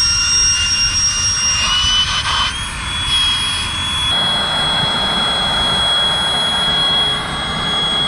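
Handheld Max Pump electric air pump running, a steady high whine over a rush of air as it inflates an air mattress through its valve. Its pitch steps up slightly about two and a half seconds in.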